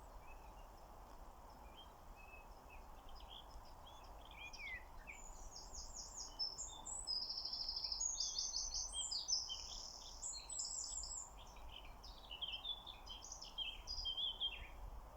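Songbirds singing: scattered chirps, then fast trilled phrases that are loudest in the middle, over a faint steady outdoor background.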